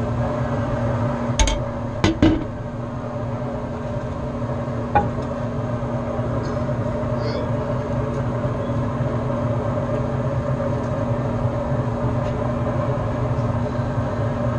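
Steady mechanical hum with a fixed pitch, broken by a few sharp clicks about a second and a half and two seconds in, and a lighter one about five seconds in.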